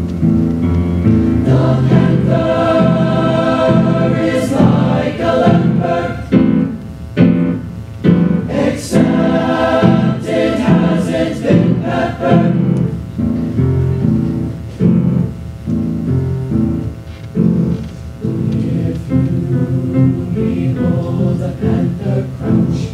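Mixed chamber choir singing in parts, in full sustained chords with crisp consonants; from about halfway on the notes grow shorter and more separated.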